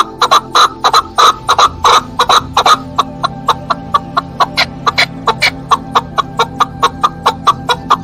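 Chukar partridge calling: a long series of short, clucking notes, about two or three a second and loudest for the first three seconds, then quicker at about four a second.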